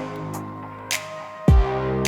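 Background electronic music with a steady beat: held synth notes, a deep kick drum about a second and a half in, and hi-hat strokes.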